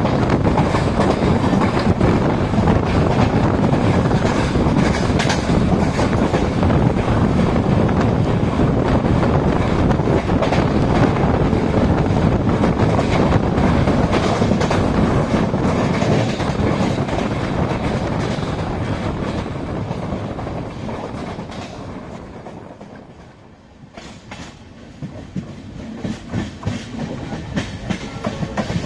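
Passenger train coaches running along the track, heard from on board: a steady loud rush of wheels and rails with clickety-clack over the rail joints. About two-thirds through, the noise fades over several seconds to a much quieter low rumble. It then builds again with sharper clacks near the end.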